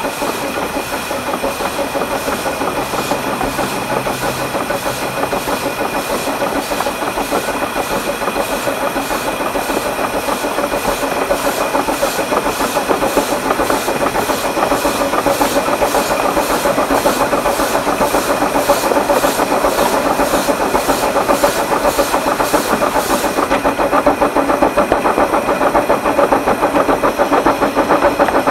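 12¼-inch gauge steam locomotive built by the Exmoor Steam Railway, working hard up a 1 in 50 climb: a steady run of exhaust chuffs at about two a second with steam hiss and running noise, the chuffs fading a few seconds before the end.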